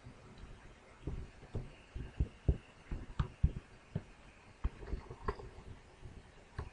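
Irregular soft taps and a few sharper clicks of a computer drawing input device being worked, about a dozen in a few seconds, mostly dull and low.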